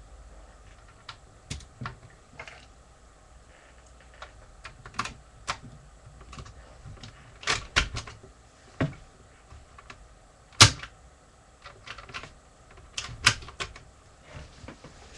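Irregular sharp clicks and knocks of hard plastic from a Lego brick-shooter gun being handled. The loudest knock comes about ten and a half seconds in.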